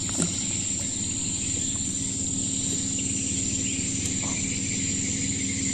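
Steady, continuous insect chorus with a single shrill high tone held throughout, over a low steady rumble.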